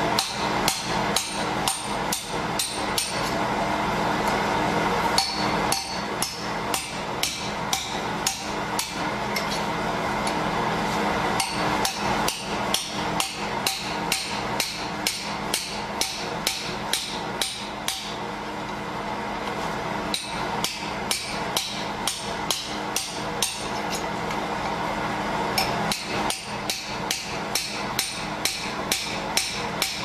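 Hammer striking a Securam safe lock over and over, about two to three blows a second, each with a short metallic ring, with a steady low hum underneath.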